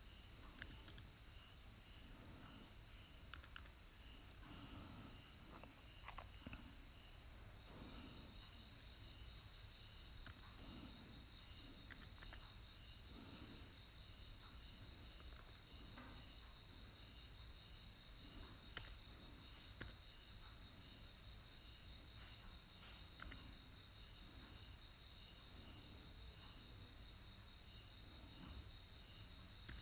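Faint, steady high-pitched chirring of crickets, with a soft pulsing beat under it. A few faint scattered clicks, consistent with computer keys being pressed one at a time.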